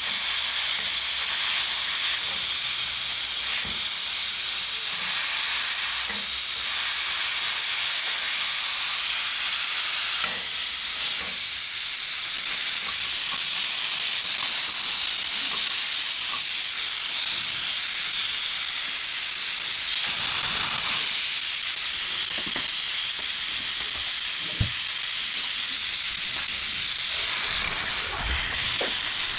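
Portable steam autoclave hissing steadily as steam escapes from the valve on its lid. A few light knocks near the end.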